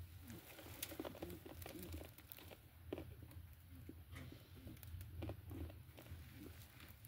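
Faint rustling and crackling of hay and fur nest material as a hand moves among newborn rabbit kits, with scattered small clicks over a low steady hum.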